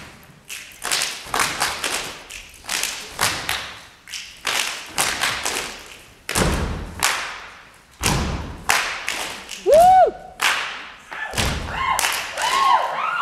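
A group of performers doing body percussion: rhythmic hand claps with two heavy stomps about six and eight seconds in. About ten seconds in a single voiced whoop rises and falls, the loudest sound, and a few short vocal calls follow near the end.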